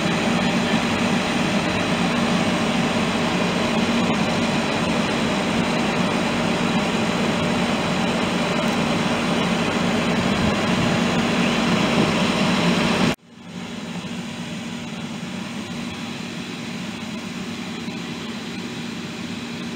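Steady, loud running of a fire engine's pump pushing water through a hose line, mixed with the rush of the high-pressure stream. About thirteen seconds in it cuts off abruptly and a quieter steady rushing noise takes over.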